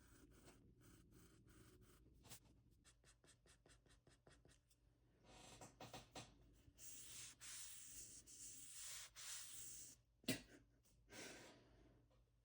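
Faint scraping of a stylus on a scratch-art board: quick short strokes at first, then longer continuous scraping from about five to ten seconds in, with a sharp tap just after.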